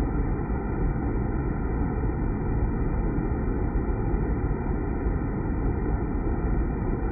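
Water spraying down and splashing into the pooled water inside a stainless-steel deaerator vessel: a steady rushing, strongest in the low rumble.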